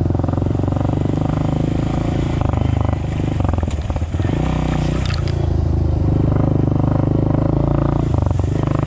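Dirt bike engine running under way, pulling steadily with a brief easing of throttle about four seconds in, and a few light clatters around then.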